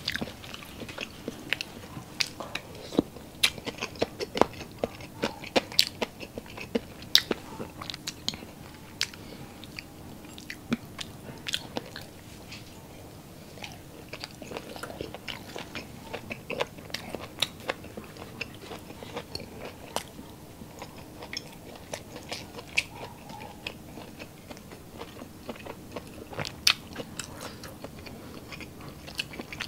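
A person chewing and biting close to the microphone on grilled Filipino street food (ihaw-ihaw skewers), with many short crunches and clicks that come thicker in the first half.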